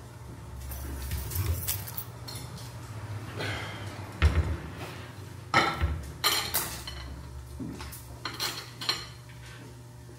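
Dishes and metal cutlery clinking and knocking in scattered, irregular strikes, the loudest about four and five and a half seconds in, over a steady low hum.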